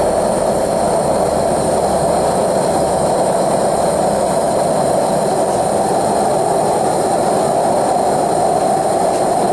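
Propane burner firing a small melting furnace to melt a crucible of silver: a loud, steady roar, with a low rumble that eases about three seconds in.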